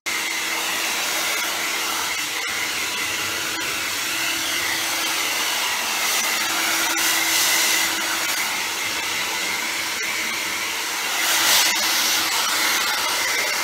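Handheld hair dryer blowing steadily with a low hum under the rush of air, briefly louder about eleven seconds in as the airflow swings toward the microphone.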